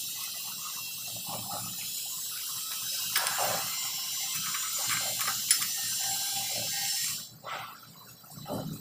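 A steady hiss with scattered light clicks and knocks, from a PP-R pipe and elbow being handled at the fusion iron. The hiss cuts off about seven seconds in.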